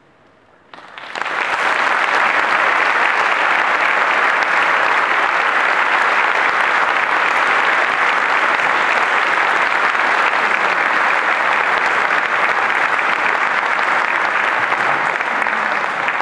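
Audience applause breaking out about a second in, dense and steady, easing off near the end.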